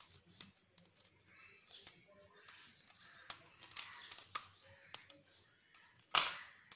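Small metallic clicks and scrapes of a screwdriver working the brass terminal screws of a switch on a plastic switchboard, with one louder, brief rasp about six seconds in.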